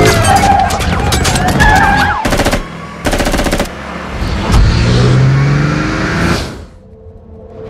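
Film action-scene sound: a long rattle of automatic gunfire, then a shorter burst about three seconds in, and a car engine revving up about five seconds in. It all cuts off suddenly near the end, leaving a faint held music tone.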